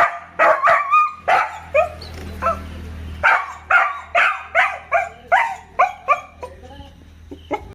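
A dog barking over and over in short, sharp barks, about two a second, with a brief pause about three seconds in.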